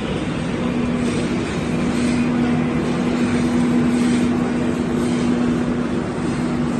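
Machinery running steadily: a constant low hum over an even rushing noise.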